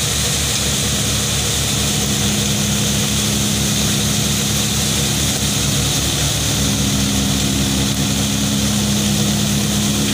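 Tractor-driven Power King wheat thresher running under load as straw is fed into it: a steady whir from the drum and fan over the tractor diesel's low, even pulsing.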